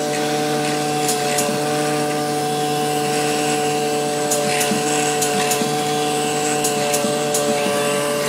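DRD Rubber CNC die-rubber cutting machine running as its spindle head cuts a sheet of die-ejection rubber: a steady whine of several held tones, with occasional light clicks.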